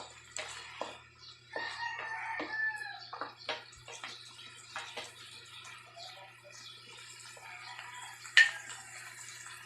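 A rooster crows about two seconds in, with chickens clucking, over a series of sharp taps of a utensil against a pan; one loud clank near the end.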